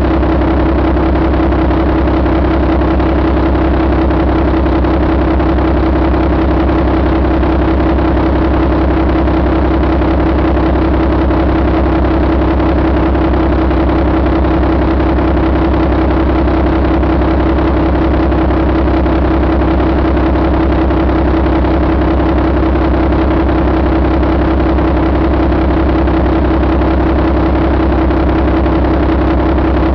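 2015 Mack MP7 inline-six diesel engine idling steadily.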